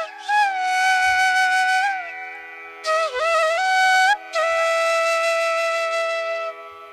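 Background music: a bamboo flute playing long held notes that bend and slide between pitches, over a steady drone.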